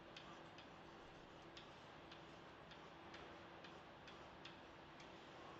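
Faint, slightly irregular clicks and taps of a pen on an interactive whiteboard surface during writing, about two a second, over a faint steady electrical hum.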